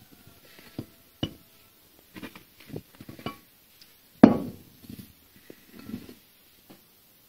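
Metal clanks and scraping as the sliding jaw of an old bench vise is pulled out of the vise body, with one loud clank a little over four seconds in.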